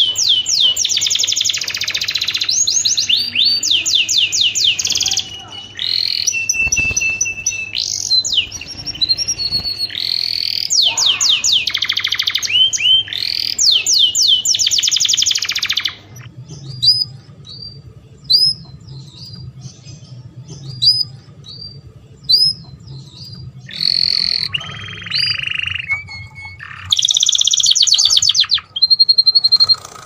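Domestic canaries singing a courtship song: long, fast rolling trills for about the first half, then sparser single rising chirps broken by short trills.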